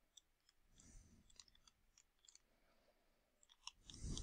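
Faint, scattered clicks and taps of a stylus pen writing on a tablet, against near silence, with a louder soft low-pitched sound near the end.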